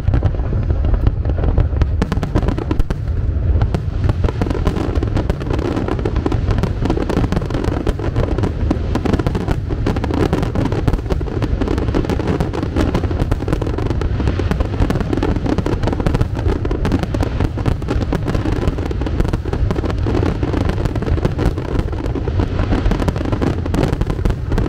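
Aerial fireworks display going off in a dense, continuous barrage of bangs and crackles, with no break.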